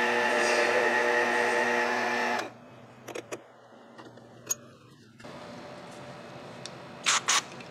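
Variable-speed mini lathe running with a steady whine, switched off abruptly about two and a half seconds in. Light clicks and knocks of handling follow, with two sharp clicks near the end.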